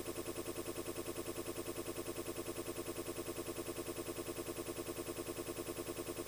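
Steady, even pulsing drone sound effect, about seven pulses a second, with no change in rate or level.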